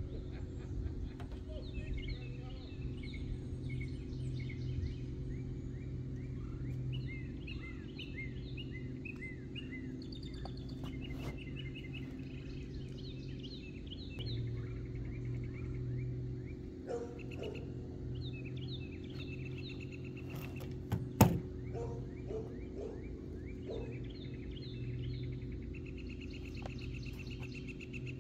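Small birds chirping and calling again and again over a steady low outdoor rumble, with one sharp click about three-quarters of the way through.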